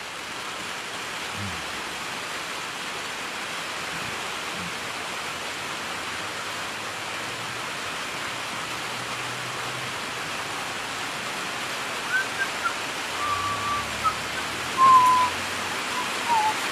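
Heavy rain falling steadily, heard from under a veranda roof. Near the end a few short high calls or whistles cut through it.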